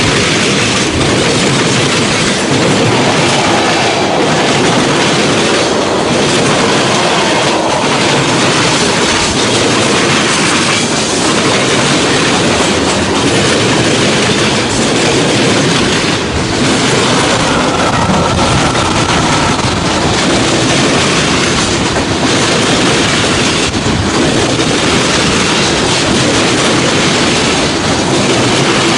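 Norfolk Southern mixed freight train rolling past: a loud, steady rumble of steel wheels on rail, with wheels clacking over rail joints. A brief faint wheel squeal comes about two-thirds of the way through.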